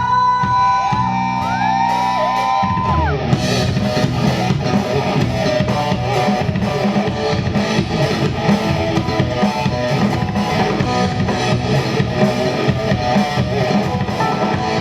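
The instrumental intro of a rock song. A guitar bends notes at first, then the drums and the full band come in about three seconds in.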